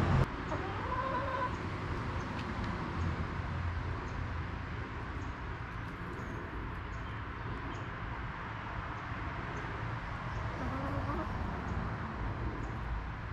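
Hens making a few soft, short calls, one about a second in and a rising one near the end, over a steady low background hum.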